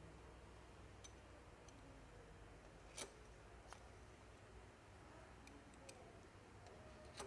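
Near silence with a faint hum and a few faint, sharp clicks, the clearest about three seconds in and another near the end.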